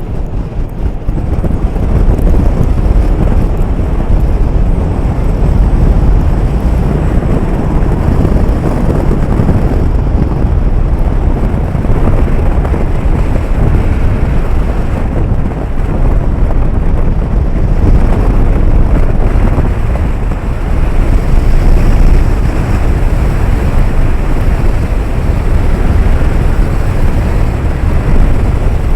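Strong gale-force wind buffeting the microphone: a loud, continuous rumbling roar that rises and falls with the gusts, with blown sand hissing in it.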